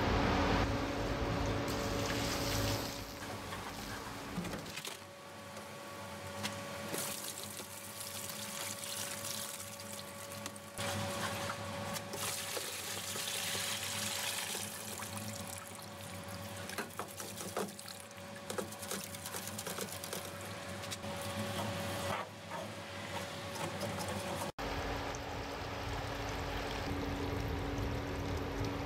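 Liquid pouring and splashing, with abrupt changes a few times where the footage is cut.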